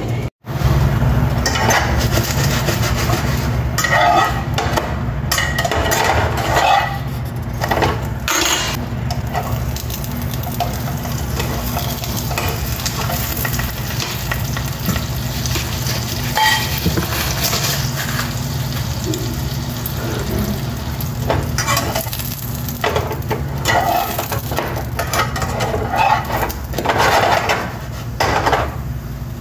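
A slice of French toast sizzling as it fries in a pan, with scattered short clicks and scrapes over the steady sizzle.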